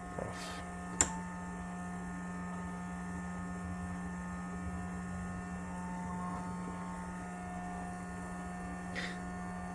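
Steady electrical hum from powered bench electronics, with one sharp click about a second in.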